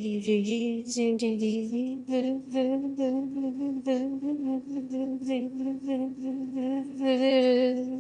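Background music: a sung melody held on long, slightly wavering notes, over quick, light percussion ticks.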